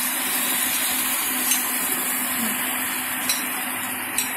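Boiled Maggi noodles tipped into a kadhai of hot frying onion-tomato masala, with a steady sizzle that fades slightly. Three short sharp clicks of the metal spatula against the pan.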